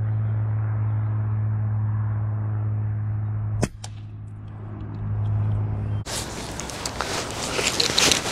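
A low steady hum. About three and a half seconds in, the Daystate Wolverine C-type pre-charged air rifle fires once with a short sharp crack. The hum carries on until about six seconds in, when it gives way to outdoor rustling and wind noise.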